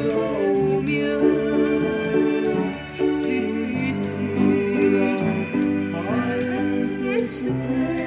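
Upright piano played by ear, chords and melody, together with a woman singing a slow ballad with vibrato.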